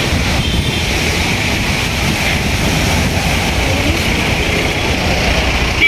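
Dust-storm wind rumbling on the microphone over street traffic, with a short vehicle horn toot about half a second in.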